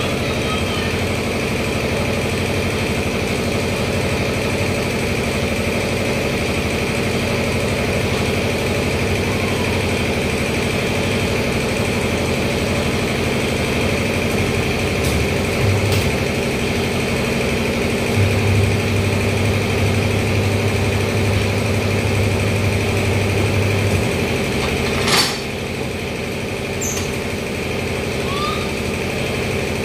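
Steady machinery running in a tyre shop, with a tyre changer's motor humming louder for about six seconds past the middle and stopping abruptly, followed by a sharp knock.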